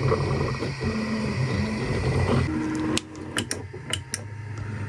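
Weefun Tina2S 3D printer printing: its stepper motors whine in short tones that jump in pitch as the head and bed move, over a steady hum. The printer sound cuts off suddenly about three seconds in, leaving quieter room sound with a few light clicks.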